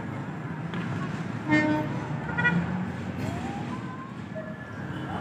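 Diesel locomotive horn giving two short blasts, the first and louder about a second and a half in, over a steady low rumble.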